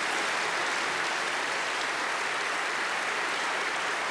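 Audience applauding, a steady sustained clapping that holds at an even level.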